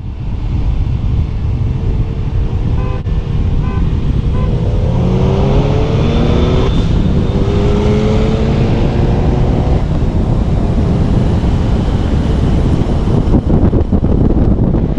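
Car accelerating hard under full throttle, with heavy engine and road rumble. The engine note climbs, breaks off at a gear shift, then climbs again.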